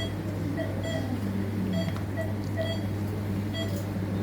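Patient monitor beeping in short, regular high blips about once a second, the pulse tone tracking the patient's heartbeat, over a steady low hum of theatre equipment.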